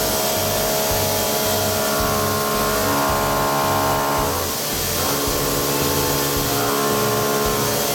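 MOLDINO ABPF-SH end mill cutting welded material on a CNC machine: a steady, high whine from the spinning cutter that shifts briefly about halfway through. Background music with a steady beat plays underneath.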